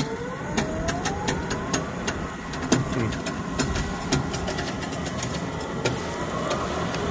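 A tow vehicle's engine pulls, rising in pitch near the start, as a seized tractor is dragged on a chain in fifth gear, with scattered clicks and knocks from the dragged tractor. The locked-up engine does not turn over because something is slipping in the transmission, probably the over-under.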